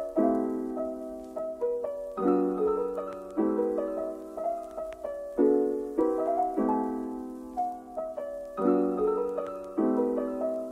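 Background music: a piano instrumental, chords struck about once a second and left to ring out.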